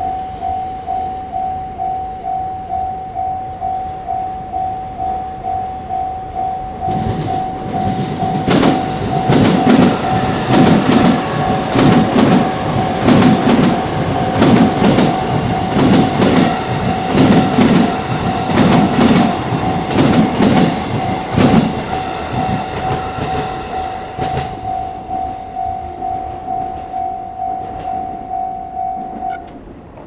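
Japanese level-crossing warning bell ringing about twice a second while a green-striped electric commuter train passes over the crossing, its wheels clacking in a steady rhythm over the rail joints. The train comes in about a quarter of the way through and fades after about two-thirds. The bell stops shortly before the end as the crossing clears.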